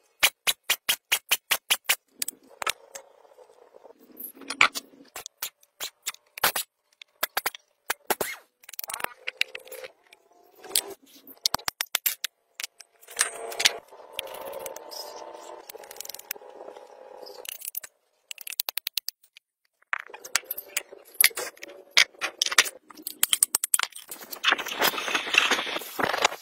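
Ratchet wrench clicking in quick runs as bolts are turned on a tractor gearbox and axle housing, with metal clinks between them. There is a steadier ringing stretch midway, and near the end an angle grinder runs against the cast-iron housing.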